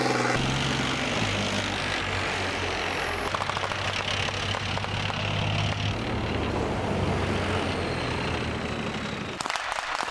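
Tank engine running steadily with a rushing noise over it. Near the end it gives way abruptly to a rapid clatter of sharp clicks.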